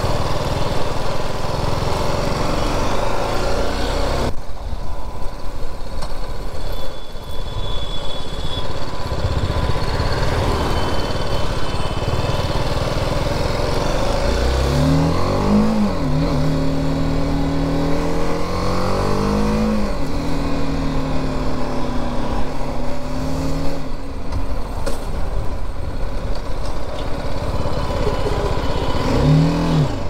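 BMW G 310 GS single-cylinder engine running under way, with a rumble of wind noise. About halfway through the engine note rises in a couple of pulls, holds steady for several seconds and then drops; it rises again briefly near the end.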